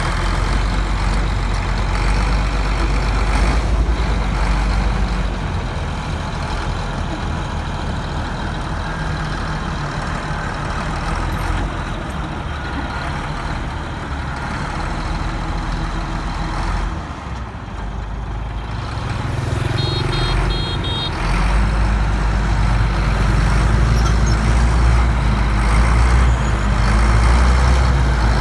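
Bulldozer's diesel engine running close by with a steady low rumble, dipping briefly and then working harder and louder about two-thirds of the way through. A brief run of high beeps sounds just before the engine picks up.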